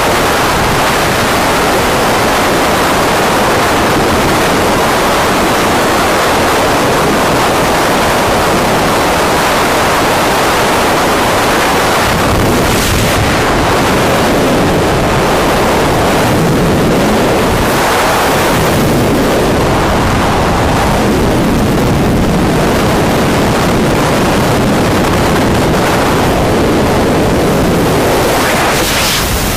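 Loud, steady rush of freefall wind blasting across the camera's microphone during a tandem skydive.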